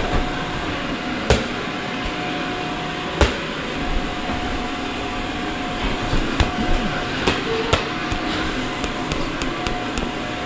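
Electric blower of an inflatable bounce house running steadily with a hum. Sharp thumps sound over it as plastic balls hit the inflated vinyl: two loud ones in the first few seconds, then a quick cluster of smaller ones in the second half.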